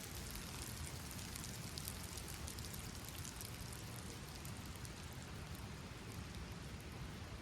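Steady rain falling, an even hiss of rain with many small drop ticks.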